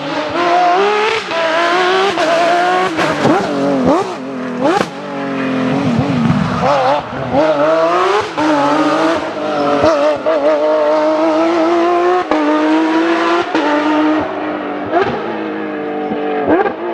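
Porsche 911 GT3's naturally aspirated flat-six engine driven hard: the revs climb and drop back again and again through gear changes, with a few quick, sharp rises and falls in pitch around four to five seconds in.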